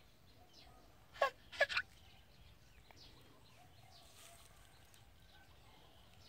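Three short, loud squawks close together a little over a second in, typical of a chicken or other domestic fowl, over faint scattered bird chirps.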